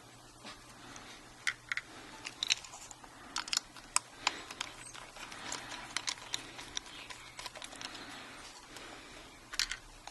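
Scattered small clicks and light scraping from handling a laptop drive's mounting bracket and pins while they are fitted onto a new solid state drive.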